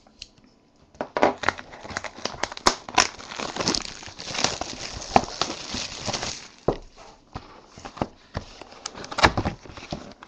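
Clear plastic shrink-wrap being torn and peeled off a cardboard trading-card hobby box: dense crinkling and crackling with many sharp clicks, starting about a second in.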